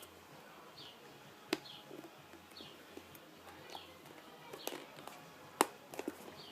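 Scattered light clicks and taps of small gauge parts being handled and fitted during reassembly of a tachometer, with a bird chirping repeatedly in the background in short falling notes.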